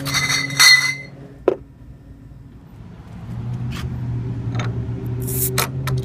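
Glass bottles clinking together as one is pulled from a cooler shelf, then the cap of a glass bottle of Topo Chico mineral water prised off on a Jeep-mounted bottle opener, with a short hiss of escaping carbonation a little after five seconds.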